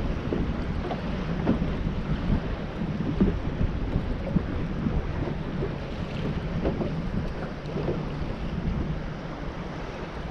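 Wind buffeting the microphone on a bass boat, over choppy water lapping at the hull with small irregular splashes.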